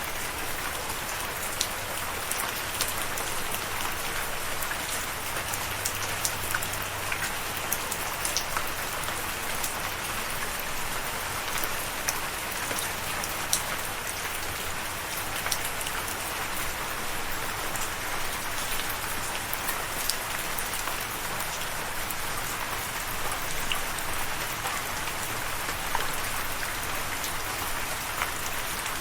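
Steady rain falling, a continuous hiss of drops with many scattered sharp drip ticks on a surface.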